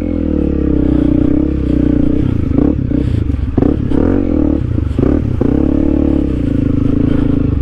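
Honda CRF300L's single-cylinder four-stroke engine running under throttle through muddy ruts. Its pitch rises and falls as the throttle is worked, and a few knocks and clatters come in the middle.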